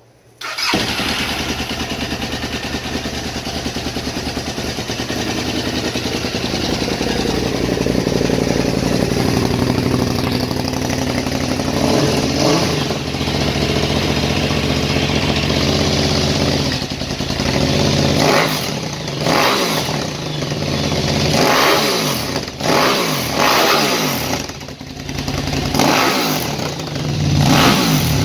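KTM 950 Super Enduro's carbureted LC8 V-twin, freshly rejetted, firing up about half a second in on its first start after a carburettor rebuild and settling into a steady idle through its Yoshimura pipe fitted with a dB killer. From about 17 seconds on, the throttle is blipped repeatedly, the engine revving up and dropping back several times.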